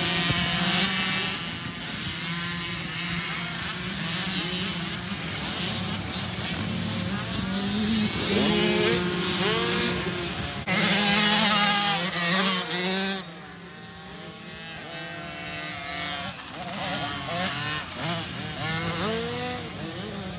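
Several dirt bike engines out on the track, their pitch rising and falling with the throttle as the bikes accelerate and shift, the sound overlapping and loudest about halfway through.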